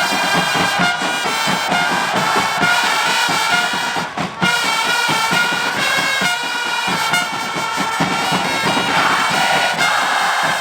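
Football supporters' trumpets playing a chant melody over a fast drum beat in the stands, with the crowd of fans singing along; the crowd's voices swell near the end.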